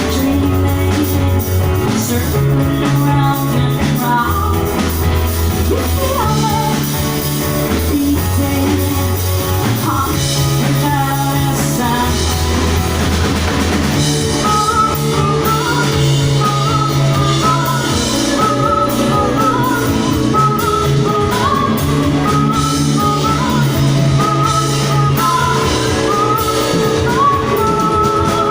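Live rock band playing: drum kit, electric guitar, and a bass line that moves between two low notes every second or two, with singing over it.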